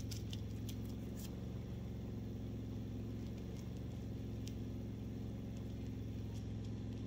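Portable generator engine running steadily, a low even hum, with a few faint paper rustles and ticks as sweetener packets are opened over a cup.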